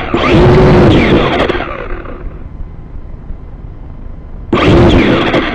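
Small quadcopter drone's motors revving up in bursts while the downed drone lies in dry grass. Each burst is a loud rushing noise whose pitch rises and falls. The first burst fades out after about a second and a half, and a second starts about four and a half seconds in.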